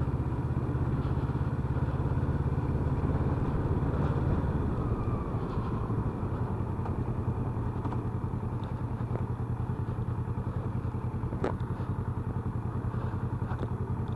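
Kawasaki Vulcan S's parallel-twin engine running steadily at an even, unchanging note. It drops slightly in loudness about five seconds in, and there is a single sharp click about three quarters of the way through.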